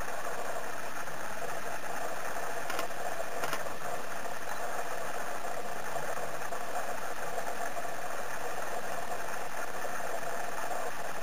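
Steady mechanical hum with hiss, even in level, with two faint clicks about three seconds in.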